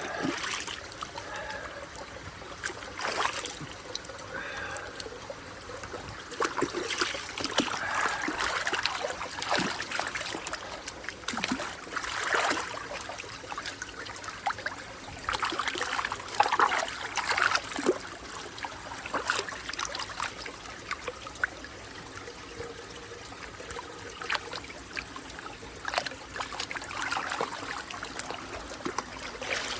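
Water trickling and splashing, with irregular louder rushes and small clicks over a steady running-water hiss.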